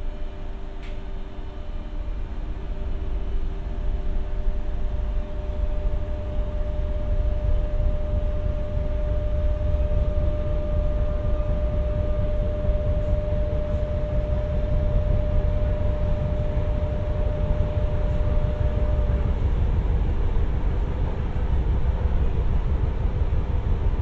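Renfe Class 447 electric commuter train running, a low rumble of wheels on rail that grows louder over the first few seconds. Several steady tones sit above the rumble; the clearest fades out about 19 seconds in. There is one brief click about a second in.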